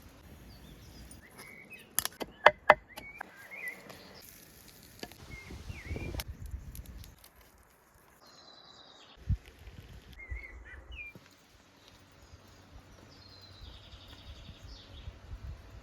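Outdoor ambience with short bird chirps now and then. A few sharp clicks or knocks come about two seconds in, with dull thuds later.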